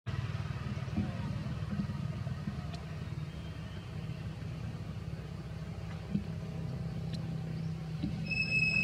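A motor running steadily with a low rumble. Near the end a brief high, thin squeak with overtones cuts in.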